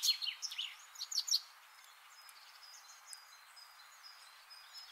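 Small birds chirping: a quick run of short, high, downward-sliding chirps in the first second and a half, then only faint scattered chirps over a steady hiss.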